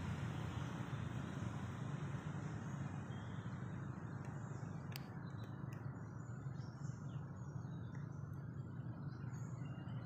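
Steady low rumble of passing road traffic, with short bird chirps scattered over it.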